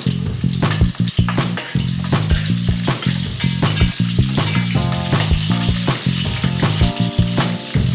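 Food frying and sizzling in a hot pan for a curry, with a steady hiss and frequent short knocks of a utensil stirring against the pan. Background music with a repeating bass line plays along.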